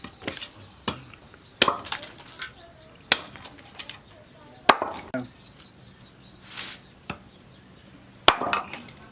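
A blade chopping into wood: about six irregular sharp strikes, each with a short ring, the hardest two near the middle and near the end, and a brief rushing swish in between.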